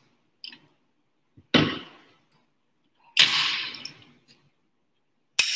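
Handling knocks and clicks from a UVC tube light fixture with a wire guard being opened: a small click, a sharp knock about 1.5 s in, a longer rattling clatter about 3 s in, and a sharp click near the end.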